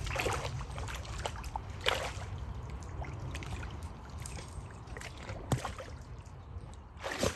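Water sloshing and splashing as dogs wade and swim, with several short splashes, the sharpest about two seconds in and just before the end, over a steady low rumble.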